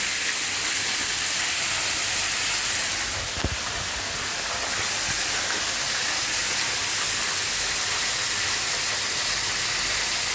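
Steady rush and hiss of a waterfall. A brief low thump comes about three and a half seconds in.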